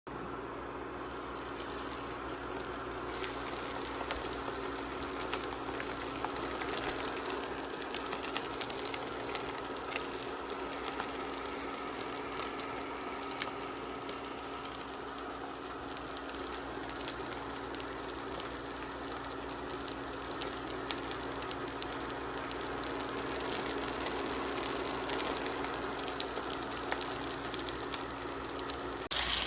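Induction cooktop running with a steady hum while a pan on it heats, with a faint crackling sizzle from the pan that turns into louder frying just before the end.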